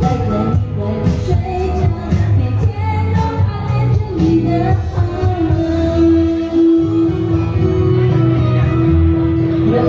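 Live band playing a pop song, with a woman singing over violin and saxophone and a steady backing beneath. One long note is held through the second half.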